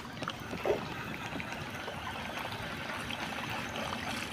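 Water trickling and lapping against a small boat's hull, a steady soft wash.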